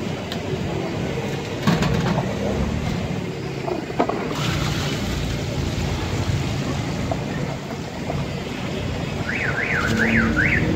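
Hot oil sizzling in a deep fryer as raw cut potatoes are tipped in from a plastic tub. A couple of sharp knocks come before it, and the hiss grows stronger from about four seconds in, over steady street traffic noise. Near the end, a warbling alarm tone rises and falls four times.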